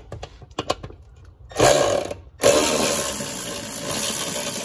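A cordless power driver spinning a 10 mm socket to back out a mounting bolt: a short burst, a brief pause, then a steady run of about three seconds with a thin motor whine. A few light clicks of the tool come before it.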